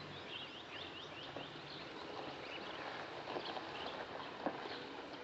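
Wild birds chirping: a quick run of short, falling chirps near the start, then scattered calls over a faint steady hiss. A few sharp clicks stand out, two of them later on.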